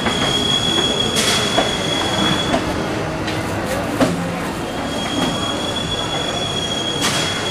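Train wheels squealing on the rails: a steady high-pitched squeal that stops for a couple of seconds mid-way and then returns, over constant rumbling rail noise. Thin plastic sheet crinkles briefly a couple of times as it is pulled over a food tub.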